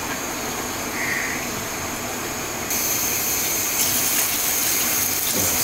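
Curry sizzling in a hot metal kadai, then, about two and a half seconds in, a stream of water poured from a jug into the pan, a louder, brighter splashing hiss. The water goes into the fried potato and spice base to make the curry's gravy.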